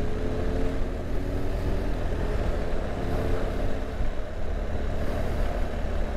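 BMW R1200 GSA boxer-twin motorcycle running at low speed, a steady low rumble with faint engine tones above it, among other traffic.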